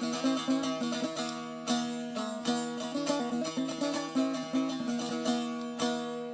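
Instrumental break in a Kurdish folk song: a plucked string instrument plays a quick run of notes over a steady drone.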